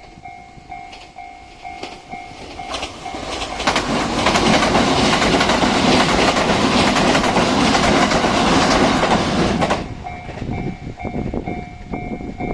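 Limited express Noto Kagaribi train passing a level crossing at speed: a loud rush of wheel and rail noise with clattering over the rail joints, building a few seconds in and lasting about seven seconds. The level-crossing bell rings in steady repeated pulses before and after the train, drowned out while it passes.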